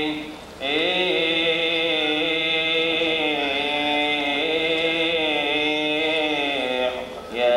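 Coptic liturgical chant sung by male voice in a long, drawn-out melisma, holding notes and moving slowly in pitch. It breaks off briefly for a breath about half a second in and again near the end.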